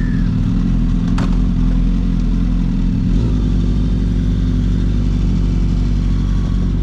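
Sport motorcycle engine running at a steady cruising speed, its pitch shifting slightly about three seconds in, under a constant rush of wind noise.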